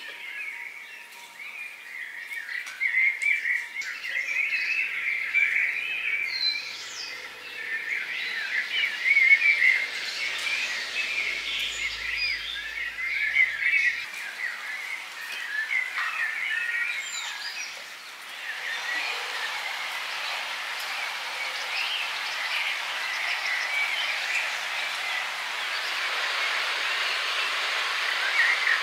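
Birds chirping and singing in a busy outdoor chorus of many short calls. After about 18 seconds a steady, even hiss of natural ambience rises beneath them and the calls thin out.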